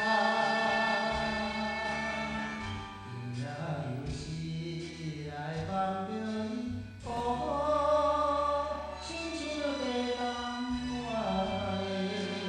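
Programme theme music: a sung melody with long held, gliding notes over instrumental backing.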